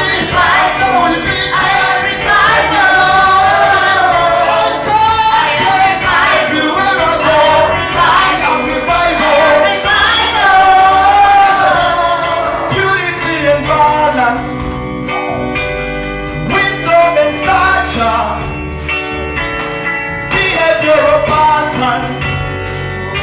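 Gospel praise music with voices singing over a band, in a large hall. A little past halfway the singing thins and the steady instrumental backing with its bass carries on.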